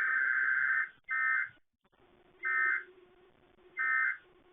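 Emergency Alert System SAME data bursts: harsh two-tone digital warbling, one burst of about a second, then three short bursts about a second and a third apart, the pattern of the end-of-message code that closes an alert. A faint low hum lies between the bursts.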